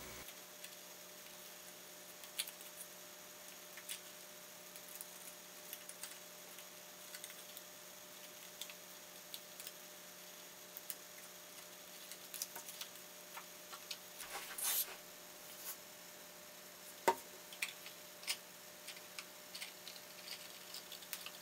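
Faint taps, clicks and rustles of stiff pre-cut card pieces of a polyhedron model being handled and fitted together, with a longer rustle about two-thirds of the way through and a sharp click just after it, over a faint steady hum.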